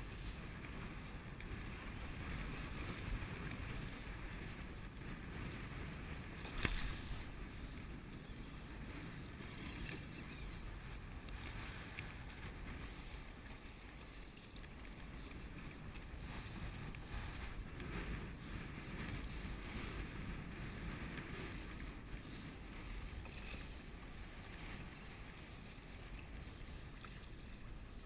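Water slapping and lapping against a kayak hull in light chop, with wind on the microphone, and one sharp knock about seven seconds in.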